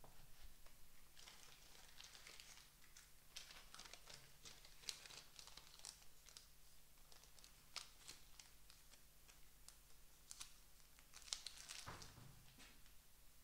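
Faint, crackly rustling and tearing of paper handled in the hands, in many short bursts.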